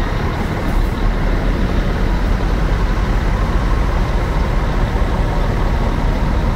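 Marcopolo-bodied intercity coach driving past and pulling away, its diesel engine giving a steady rumble.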